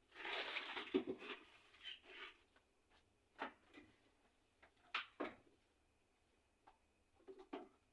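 Kitchen items being handled: a rustle of about two seconds, then a few sharp clicks and knocks spread over the rest, like things being set down or a drawer or cupboard being worked.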